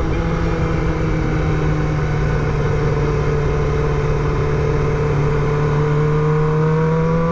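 Motorcycle engine pulling under way, heard from on the bike with wind rumble on the microphone; the engine note dips a little and then climbs slowly toward the end.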